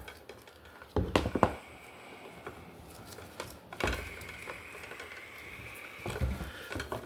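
A few sharp clicks and knocks of hand tools and wires being handled at an electrical box: a quick cluster about a second in and one more knock near four seconds.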